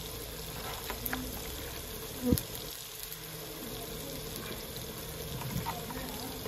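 Tomato-and-onion masala sizzling steadily in an aluminium pot over a wood fire, with one sharp knock a little over two seconds in.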